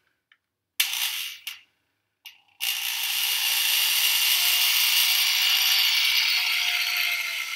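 Handheld electric drill starting up and running steadily with its long bit spinning freely in the air, not yet in the wall, from about two and a half seconds in, after a few short handling noises.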